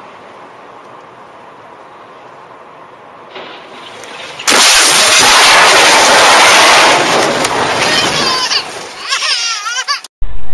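Car crash heard from inside the car: steady road noise, then about four and a half seconds in a sudden loud impact with crunching and scraping that goes on for two to three seconds before breaking up into wavering high squeals and fading.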